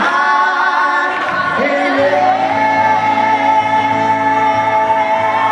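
Live acoustic music: singing that settles into long held notes about two seconds in, over acoustic guitar.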